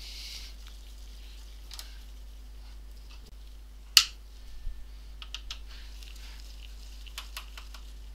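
Small clicks and taps of a screwdriver working screws out of a laptop's plastic base, with one sharp click about four seconds in and a few quick ticks after it and near the end.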